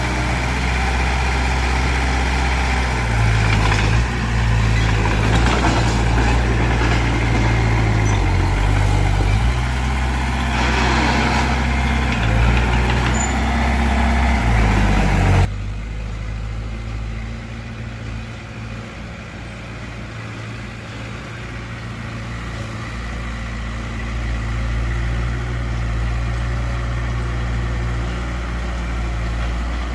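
Heavy earthmoving machine's diesel engine running hard, its note shifting with the work. About halfway through it drops suddenly to a quieter, lower running.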